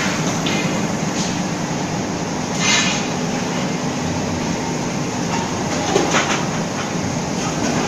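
Steady din of factory machinery in a leaf-spring plant, a continuous rumbling noise with a low steady hum. A brief noisy burst comes about a third of the way in, and a few sharp knocks come about three-quarters of the way through.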